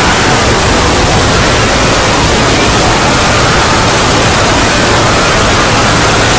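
Loud, unbroken wall of harsh, distorted noise from hundreds of copies of a sound effect stacked on top of one another, with faint wavering pitches showing through the hiss.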